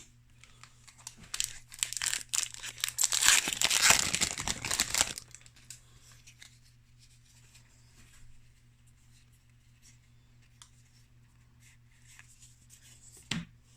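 A Modern Horizons 2 booster pack's foil wrapper being torn open and crinkled for a few seconds, then soft rustles and light clicks of cards being handled.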